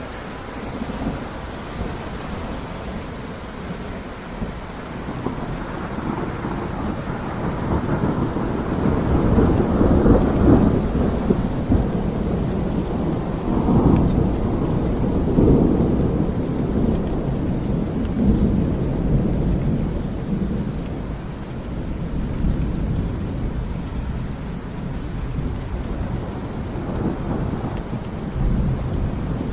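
Steady rain with thunder rolling in low, long rumbles that build and are loudest about ten and fourteen seconds in, then ease off.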